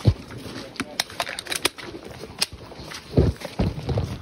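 Irregular sharp clicks and knocks, then two dull thumps about three seconds in: handling noise from a phone carried in a mesh MOLLE pouch, jostled as the wearer moves.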